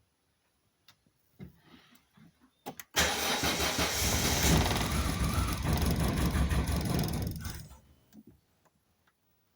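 Volvo 480 Turbo's engine turned over on the starter motor for about five seconds without catching, after a few light clicks. It is a no-start: cranking but not firing, despite a new fuel pump, leads, spark plugs, rotor and cap.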